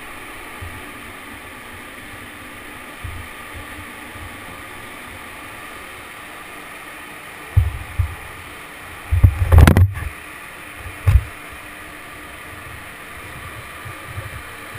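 Steady hum of a ferry's car deck, the ship's engines and ventilation droning with a few faint steady tones. A little over halfway through, a cluster of dull thumps and knocks comes close to the microphone, one sharper knock among them, and there is a last single thump a second or so later.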